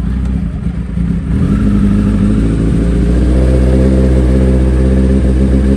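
Suzuki Hayabusa sportbike's inline-four engine running just after being started, revs held up at first and then settling to a steady idle about three seconds in.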